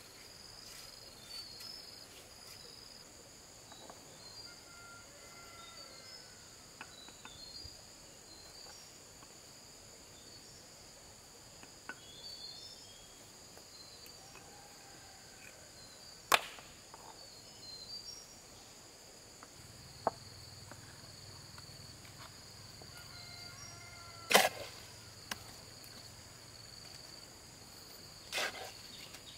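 Steady high-pitched insect chorus with faint short chirps, broken by a few sharp knocks, the loudest about halfway through and again about three-quarters of the way.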